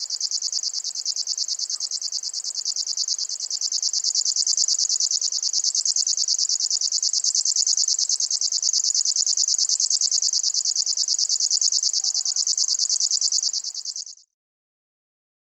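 Locustella warbler (grasshopper-warbler genus) giving its reeling song: one long, high, insect-like trill of very fast, even pulses that stops abruptly near the end.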